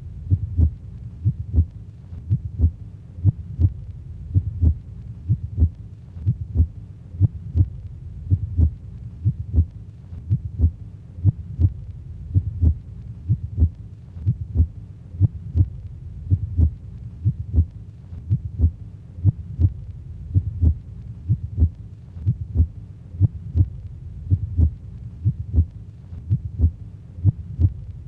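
Heartbeat-like pairs of low thumps repeating evenly, about once a second.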